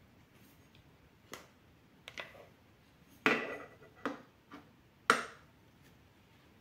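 About six sharp clicks and knocks as a large glass candle jar and its lid are handled and the lid is taken off and set down. The loudest, with a short ring, comes about three seconds in.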